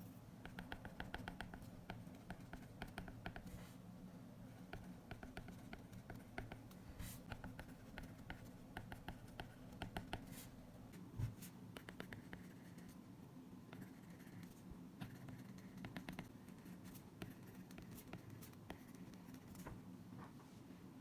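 Stylus writing on an iPad screen: faint runs of quick light ticks and scratches from the pen tip, with one low thump about halfway through.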